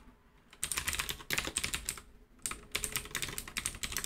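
Typing on a computer keyboard: quick runs of keystrokes in several bursts with short pauses, starting about half a second in.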